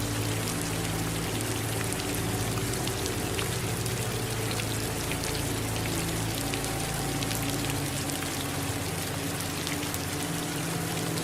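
Steady rain falling, with many individual drops ticking sharply over the even hiss, and a low steady hum underneath.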